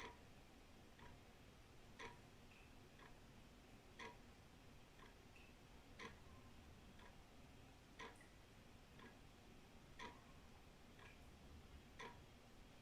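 Old wall clock ticking steadily, one tick a second, with each louder tick followed by a softer tock. A faint low rumble runs underneath.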